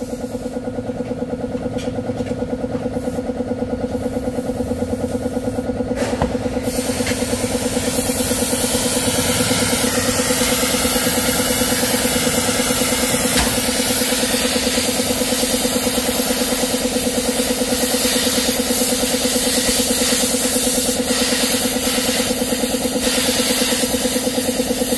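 An acetylene gas torch hisses steadily from about seven seconds in, after a click, as its flame heats and pierces holes in a steel motorcycle muffler shell. Under it, a steady engine-like drone with a fast pulse runs throughout.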